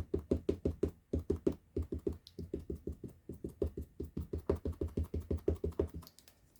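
Rapid dull tapping of an ink pad against a rubber stamp to ink it, about six taps a second, with a couple of short breaks, stopping near the end.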